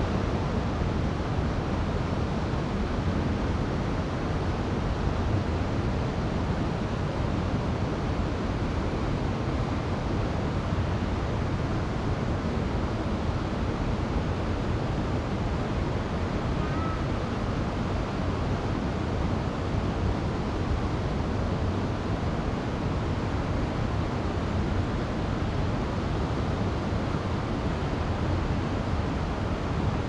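Steady rush of a forest stream cascading over rocks, an even, unbroken water noise with a deep rumble underneath.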